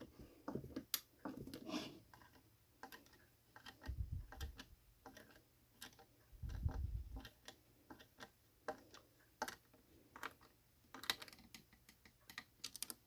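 Irregular small clicks and knocks as a screwdriver drives a washer-head screw into a plastic model support, with a couple of low bumps from the parts being handled, about four and about six and a half seconds in.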